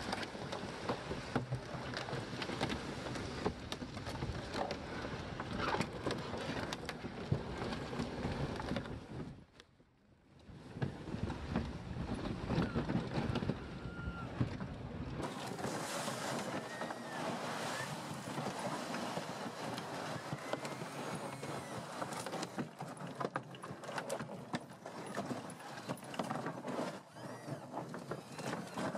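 Rattling, knocking and scraping of a tracked robotic carrier and the plastic tub it tows as they run over a rough forest trail and snow. Wind rumbles on the microphone during the first half.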